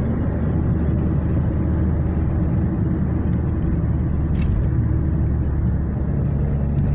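Engine and tyre noise of a moving car heard from inside its cabin: a steady low drone, with the engine note shifting about six seconds in.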